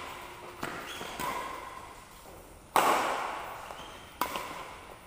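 Badminton racket strings hitting a shuttlecock during a doubles rally: four sharp cracks a second or so apart, the loudest about two-thirds of the way through, each ringing on in the large hall.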